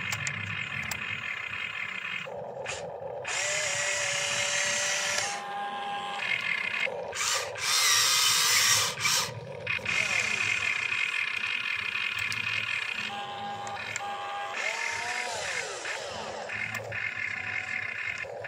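Small electric motors of a toy RC excavator whining as it digs and swings its arm, the pitch stepping and gliding up and down as each motor starts, speeds up and stops. A louder, harsher stretch comes about eight seconds in.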